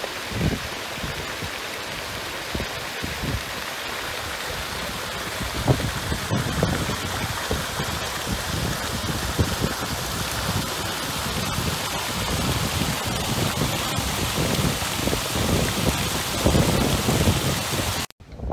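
Water pouring over a small stone weir at the outflow of a clear spring pool: a steady rushing and splashing that stops abruptly near the end.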